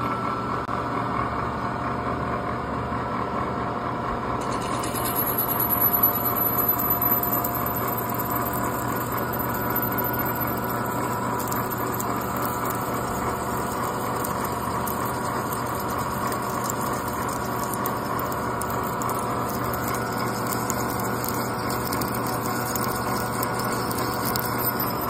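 A drill bit in a machine spindle running and cutting holes into a solid aluminum bus bar, a steady mechanical whine with a low hum. A higher hiss joins about four seconds in.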